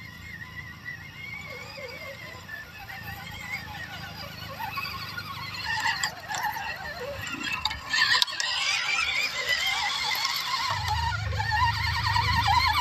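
Small electric motors and gearboxes of scale RC crawler trucks (an MN78 Cherokee and a WPL C24) whining as they crawl over a dirt track, the pitch wavering with the throttle. The sound grows steadily louder as the trucks come close.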